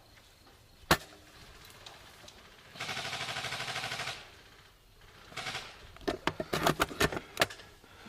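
Airsoft gunfire: a single sharp shot about a second in, then a rapid full-auto burst of about a second and a half, then a cluster of sharp snaps and shots near the end.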